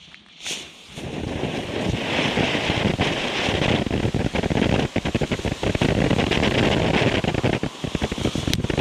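Standard Fireworks 'Fountain of Joy' low-noise ground fountain catching from its fuse about a second in, then gushing steadily: a dense hiss with fast, irregular crackling as it sprays coloured sparks and stars.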